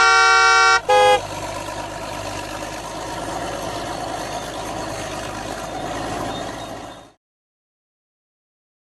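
Electronic toy vehicle sound effect: a horn honks twice, the first note long and the second short, then a steady engine running sound plays and cuts off abruptly about seven seconds in.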